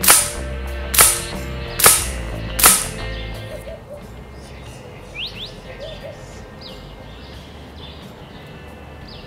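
Four sharp shots from an FX Impact PCP air rifle in .22 (5.5 mm) firing 25-grain H&N slugs, a little under a second apart, all in the first three seconds.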